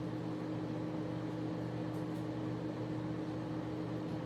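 Microwave oven running with a steady hum while it heats frozen food.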